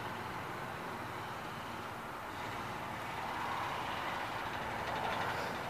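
Small single-cylinder Briggs & Stratton 190cc OHV engine on a Toro TimeMaster push mower running at a steady speed, growing slightly louder near the end.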